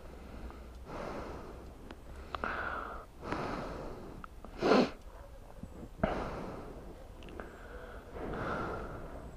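A man breathing hard: about six long breaths in and out, with one short, sharp puff of breath about halfway through and a couple of light clicks.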